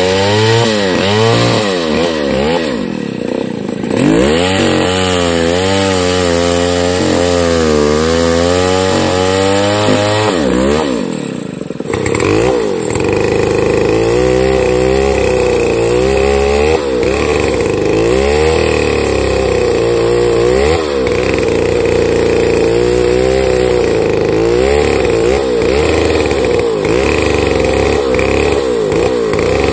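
Stihl 070 two-stroke chainsaw ripping lengthwise along a large pine log under full load. Its engine pitch wavers up and down every second or so as the chain bites. The engine briefly eases off about three seconds in and again about eleven seconds in.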